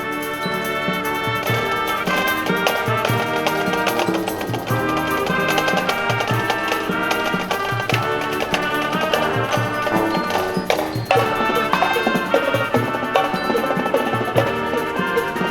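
High school marching band playing live: brass carrying the tune over marching drums and mallet percussion, with a percussion crash about two-thirds of the way through.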